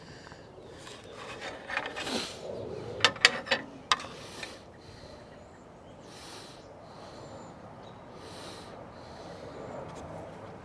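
Handling noise at the workbench: rubbing and scraping on a wooden blank, with a few sharp clicks or taps about three to four seconds in.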